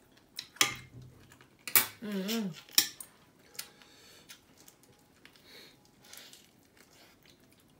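Eating utensils clicking and clinking against a plate and a cheese-baked black tiger shrimp's hard shell, with a few sharp knocks. A brief hummed vocal sound comes about two seconds in.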